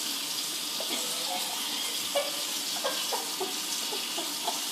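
Water running with a steady hiss, like a tap or sink filling. A few short, light clinks come over it from about a second in.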